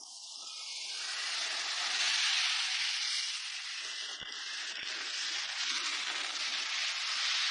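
A steady, even hiss, growing louder over about the first two seconds, with a couple of faint knocks near the middle.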